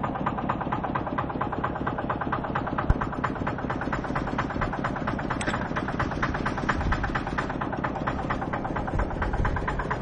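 Tractor engine idling with a steady, rapid beat, and a single sharp knock about three seconds in.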